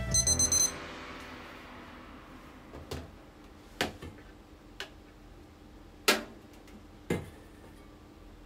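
Digital kitchen timer's alarm beeping, cut off in the first second when its button is pressed. Then a few scattered sharp clicks and knocks, the loudest about six seconds in.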